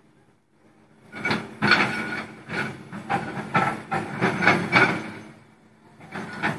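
Excavator working rock in a white-stone quarry: a run of irregular clanks and knocks of metal on rock, about two a second, starting about a second in, pausing, and starting again near the end.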